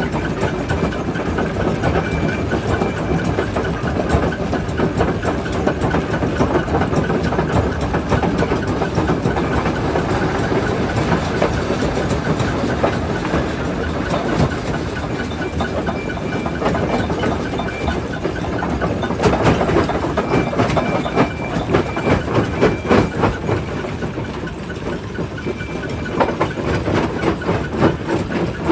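Primary jaw crusher running, rock cracking and clattering between the jaws in a constant run of knocks over the machine's steady mechanical noise, the knocks coming thicker for a few seconds past the middle.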